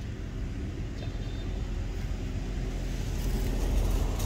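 A low rumble that grows louder about three to four seconds in.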